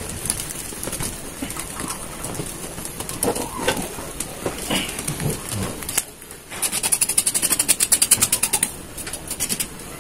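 Knife blade scraping the singed hide off a beef trotter's hoof in rapid, evenly repeated strokes, several a second, starting a little past halfway.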